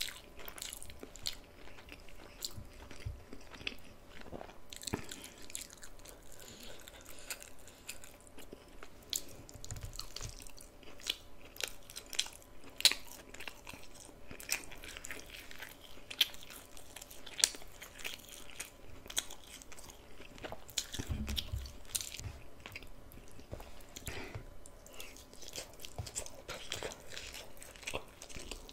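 Close-miked eating of a plate of tomato-sauce jack mackerel, fries, bok choy and rice: chewing and biting with many crisp crunches and wet mouth clicks.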